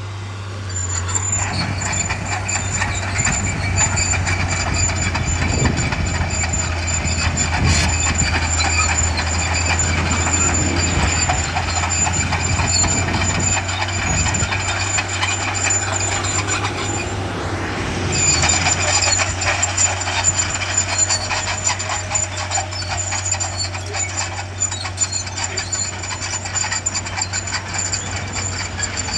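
Diesel engine of a bulldozer working dirt, running steadily with a constant deep hum.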